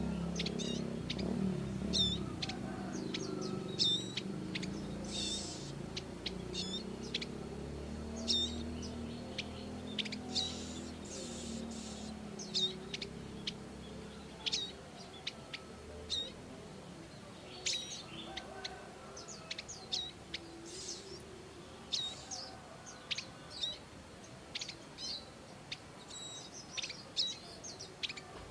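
Prinias (prenjak) giving repeated short, sharp high chirps, one every second or two, over a low rumble that fades out about halfway through.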